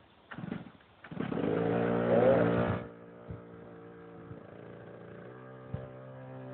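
Small go-kart engine starting: a brief first attempt that doesn't catch, then it fires about a second in and is revved hard for nearly two seconds before dropping to a steady idle.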